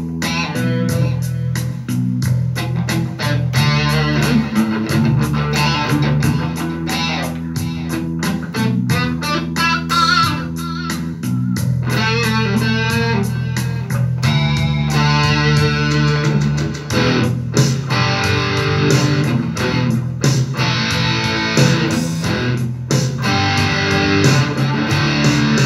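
Stratocaster-style solid-body electric guitar playing over a backing track with bass and a steady drum beat.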